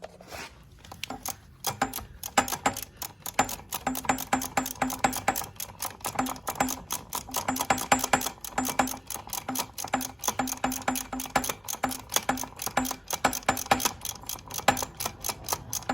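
Hand ratchet with a 14 mm socket clicking rapidly, about five or six clicks a second, as a starter motor bolt is backed out.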